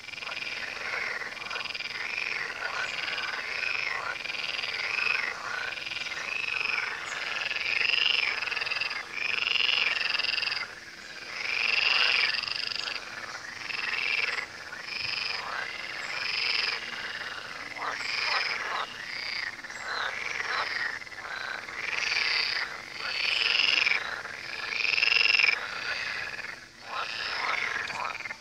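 A chorus of many frogs croaking, their calls overlapping without a break and swelling and dipping in loudness.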